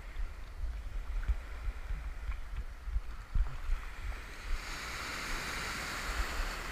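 Shallow surf washing around the angler, with wind rumbling and thumping on the microphone. About four and a half seconds in, a wave breaks and its whitewater rushes past with a broad hiss that holds steady for the last couple of seconds.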